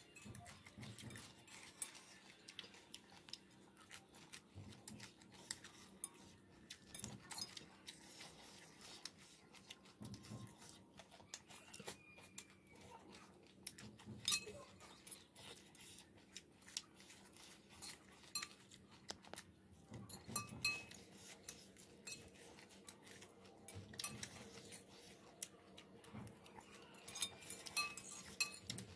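Metal forks scraping and clinking against ceramic plates, with soft chewing, as two people eat a chive salad. Scattered light clinks, a few ringing briefly, the sharpest around the middle and near the end.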